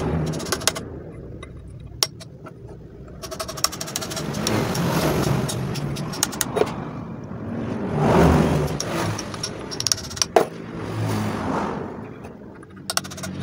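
Road vehicles passing nearby, their rumble swelling and fading several times, with a few sharp metallic clinks of hand tools against a truck differential's gear carrier.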